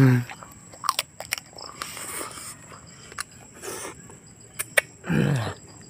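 Close-up eating of roasted chicken: scattered short crunches and clicks of biting and chewing meat off the bone, with a man's short falling 'mm' grunt at the start and another about five seconds in.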